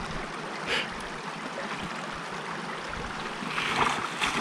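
Small mountain stream flowing, a steady rush of water, with a louder swell of rushing noise near the end.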